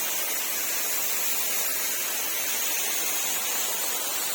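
Waterfall rushing: a steady, even noise with no breaks.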